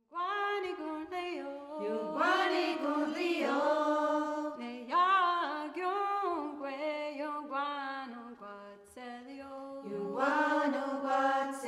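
Unaccompanied singing: a voice holding long, wavering notes and sliding between them, dropping away briefly about nine seconds in before picking up again.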